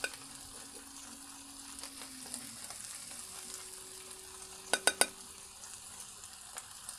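Pepper steak and vegetables sizzling with a low, steady hiss on a Blackstone flat-top griddle. About five seconds in, a metal spoon clinks three times in quick succession while rice is scooped onto a plate.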